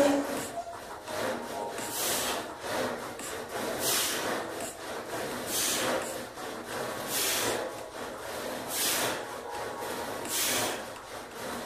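Rasping noise with each repetition of weighted calf raises, about one every second and a half, swelling and fading in a steady rhythm.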